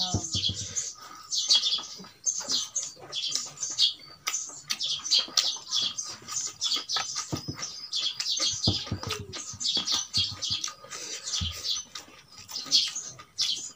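Close-miked chewing and lip-smacking of a person eating rice and meat by hand, heard as quick runs of wet mouth clicks and smacks that keep coming throughout.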